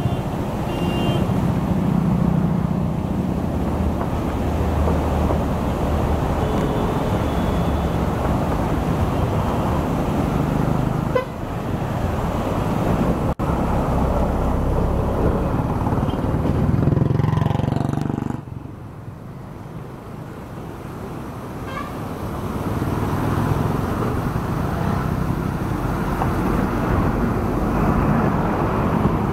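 Steady roar of whitewater rushing through a narrow rock gorge. It drops away sharply about two-thirds of the way through and swells back over the following seconds.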